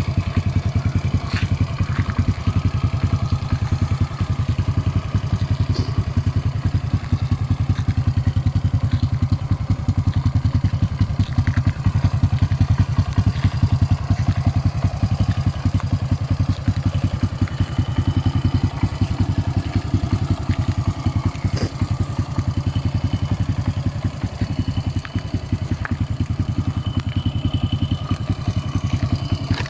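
Honda Cub C70's small single-cylinder four-stroke engine idling steadily, with an even, fast low putter and a few faint clicks.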